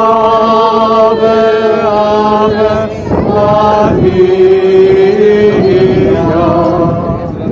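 Voices singing a slow hymn in long held notes that step from pitch to pitch, over a steady lower held note.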